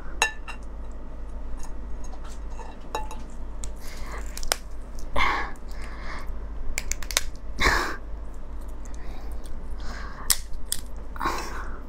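Hands breaking apart a raw soy-marinated blue swimming crab close to the microphone: the shell cracks and clicks as it is pried open, with a few louder cracks about five, seven and a half and eleven seconds in.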